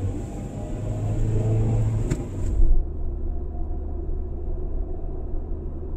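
Car cabin noise while driving: a steady low rumble of road and engine. There is a brief loud bump about two and a half seconds in. Then the sound turns abruptly duller as the same rumble continues, now as picked up by the dash cam's built-in microphone.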